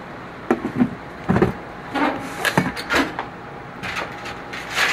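A plastic breader shaker bowl being handled: its lid is fitted on and the bowl set down on the counter. This makes a series of about six sharp plastic knocks and clicks, spaced irregularly.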